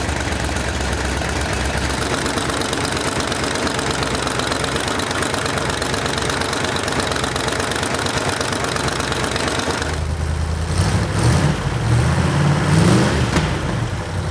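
Freshly rebuilt engine running warm, with its exhaust leaking at the headers through cheap stamped-steel header gaskets that have not sealed. About ten seconds in the sound changes and it is revved a few times, the pitch rising and falling.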